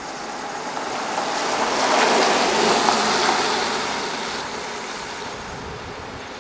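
1996 Chevrolet Impala SS driving past on a wet road: a hiss of tyres on wet tarmac swells as the car passes about two to three seconds in, then fades as it drives away.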